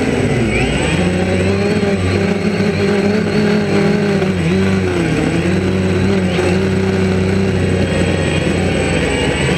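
A DJI Phantom quadcopter's motors and propellers buzz steadily, heard up close from on board the drone in flight. The pitch dips briefly about half a second in and again about five seconds in as the motors slow.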